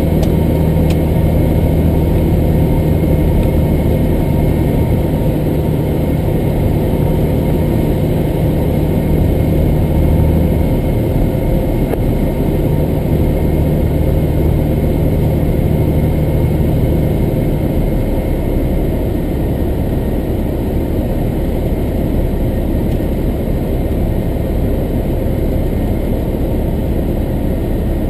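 Cessna 175's engine and propeller droning steadily inside the cabin on final approach. The engine note steps down twice, about a third and two-thirds of the way through, as power is pulled back for landing.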